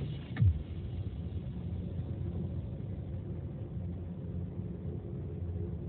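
Steady low rumble of a car driving, heard from inside the cabin, with one loud thump about half a second in.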